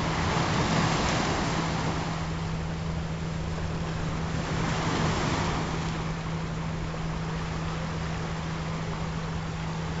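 Recorded ocean surf washing in, swelling twice about four seconds apart, over a steady low hum of layered frequency tones.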